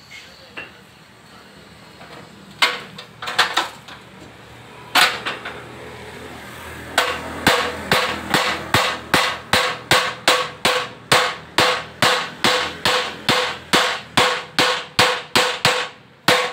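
Hammer blows on a bent Honda CD70 motorcycle frame, beating it straight. A few scattered strikes come first, then from about seven seconds in a steady run of about three blows a second, each with a short metallic ring.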